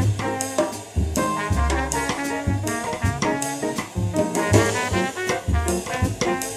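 Jazz quartet playing: trumpet carrying the melody over upright piano, double bass and drum kit, with steady cymbal strokes.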